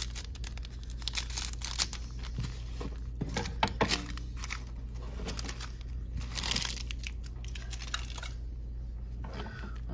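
Foil Pokémon booster pack wrappers crinkling and rustling in the hands, with many small crackles and a longer rasp about six and a half seconds in.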